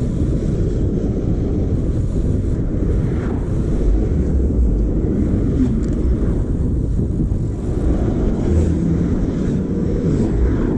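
Steady low rumble of wind on an action camera's microphone mixed with city traffic, heard from a bicycle riding among cars and scooters.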